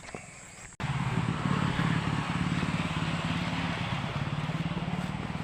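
A vehicle's engine running steadily with a fast low throb and road noise, starting abruptly about a second in.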